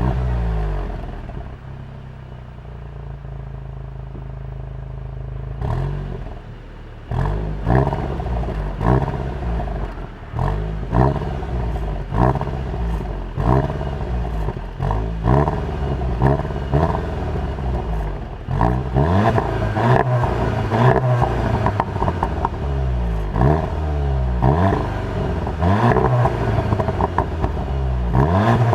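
Seat León Cupra 290's turbocharged 2.0 TSI four-cylinder running through its exhaust. It idles steadily for about six seconds, then is revved again and again in short blips that rise and fall, coming faster and higher in the second half.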